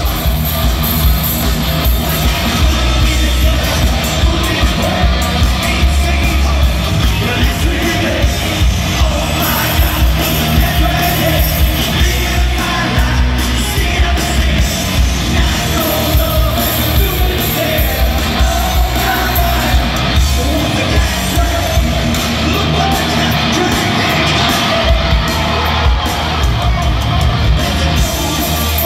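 Live rock band playing on stage: a lead singer over electric guitar and drums with a steady beat, with crowd yells mixed in, recorded loud from among the audience.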